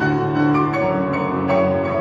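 Two Petrof upright pianos played together as a duet, several notes sounding at once.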